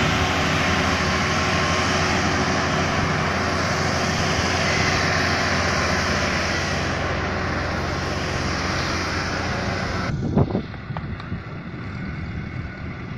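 Massey Ferguson 375 tractor's diesel engine running under load as it pulls a loaded trolley through sand. About ten seconds in the sound drops suddenly to a quieter, more distant engine.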